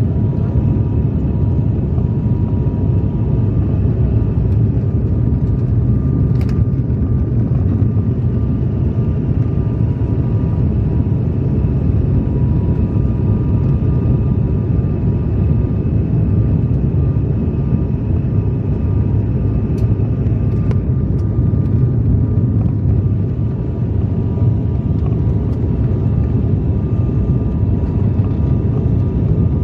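Cabin noise of an ATR 72-600 twin turboprop descending on approach to land: a steady low drone from the engines and propellers, with a few faint steady whining tones above it.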